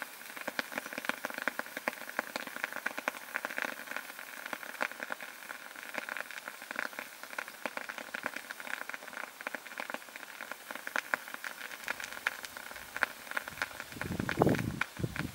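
Molten titanium and potassium hydroxide mixture reacting in a small pot, with a steady sizzle and dense, rapid crackling and popping. A brief low rumble comes near the end.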